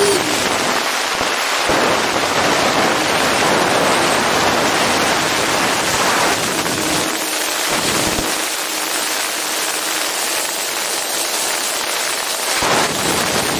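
Wind rushing and crackling over the onboard camera of a radio-controlled ducted-fan jet in flight. The fan's steady whine drops away at the start as the throttle comes back, is heard faintly and lower for a moment around the middle, and rises again near the end.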